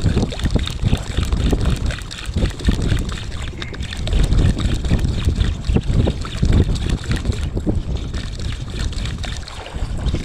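Wind buffeting the microphone aboard a small fishing boat at sea, a loud uneven rumble with irregular knocks and clicks throughout.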